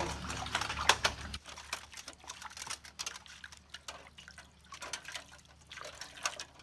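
Fresh bamboo shoot being peeled by hand over a metal bowl: irregular wet cracks, snaps and tearing as the sheath layers are pulled off. A low hum in the background stops about a second and a half in.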